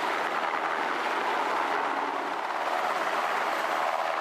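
A steady rushing noise of wind and moving water at sea, with no rhythm and no change in pitch.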